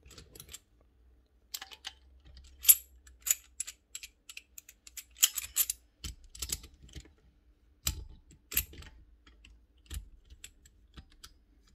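Steel bearing splitter and puller parts clinking and clicking in the hands as the splitter is fitted around a worn ball bearing on an electric motor armature shaft; irregular light metal clinks and taps, a few louder than the rest.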